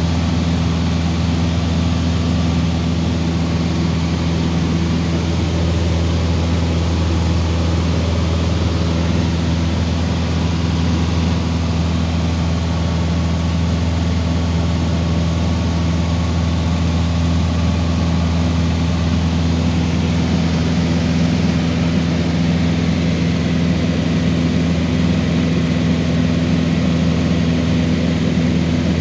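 Cessna 150's four-cylinder Continental O-200 engine and propeller droning steadily in cruise, heard from inside the cabin.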